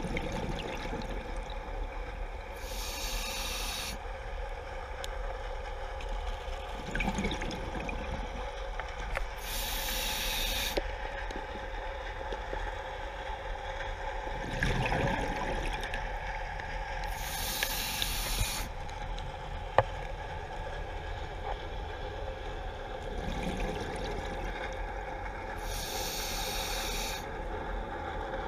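Scuba diver breathing through a regulator underwater: four hissing inhalations about seven seconds apart, each followed by the low gurgle of exhaled bubbles, over a steady hum. A single sharp click comes about two-thirds of the way through.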